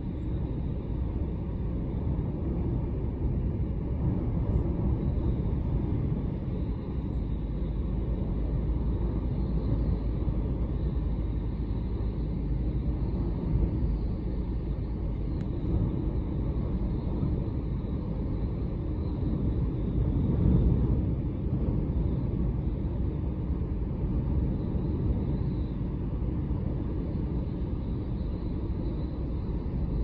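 Typhoon-force wind gusting, heard as a continuous low rumble of wind buffeting the microphone that swells and eases, strongest about two-thirds of the way through.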